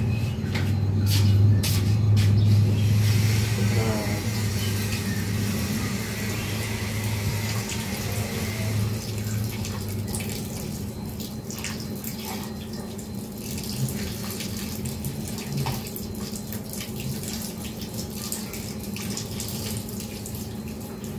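Water pouring from a plastic watering can onto the soil of a freshly potted plant, a steady splashing hiss that is strongest in the first half and slowly grows quieter.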